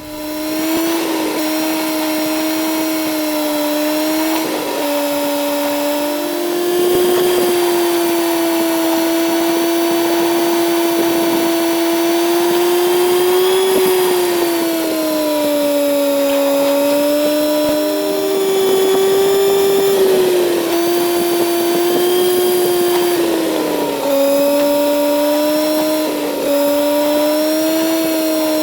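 Kawasaki Z900's 948 cc inline-four engine running hard under way, a steady high whine whose pitch shifts up and down every few seconds with throttle and gear changes.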